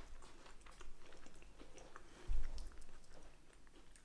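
Close-up chewing of a soft-baked chocolate-and-hazelnut cookie: small wet mouth clicks and crunches. One low thump comes a little past two seconds in.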